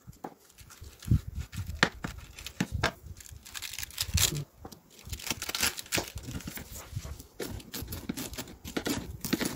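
Cabbage leaves being torn and pulled apart by hand, with irregular knocks and scrapes of a kitchen knife on a cutting board.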